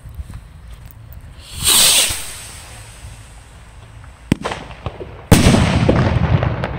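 Firework mortar shell from a Whistling Buster refill set: a short hissing rush about two seconds in, a sharp crack just after four seconds, then a loud bang a little after five seconds whose echo rolls on.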